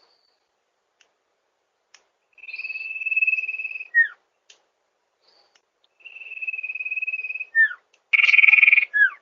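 Sirtu bird calling: a long, level, slightly buzzy trilled whistle, each ending in a short falling note, repeated three times, the third one harsher.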